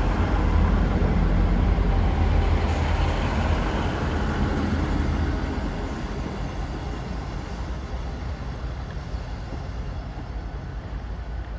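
Class 158 diesel multiple unit running into a station platform: a low diesel rumble with wheel and rail noise as the carriages pass close by, easing off from about halfway as the train draws away to its stop.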